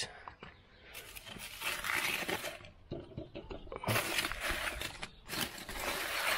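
Crumpled aluminium foil crinkling and crackling as a gloved hand pulls it out of the ash in an old charcoal kettle grill's bowl, in three bouts.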